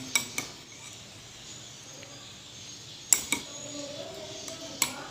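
Utensils clinking against plates and bowls as a meal is served and eaten: a few sharp clinks, three right at the start, two about three seconds in and one more near the end.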